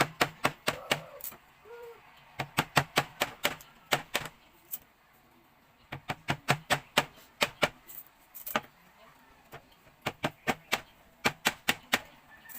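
Raw sugarcane being chewed, crisp cracking crunches of the fibrous stalk in bursts of several, about three or four a second, with short pauses between bursts.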